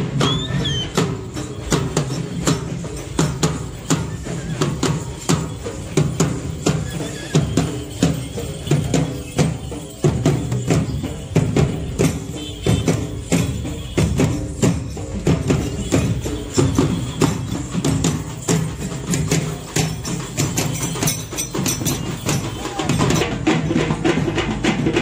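A group of barrel drums beaten with sticks, many drums together in a fast, steady, driving rhythm.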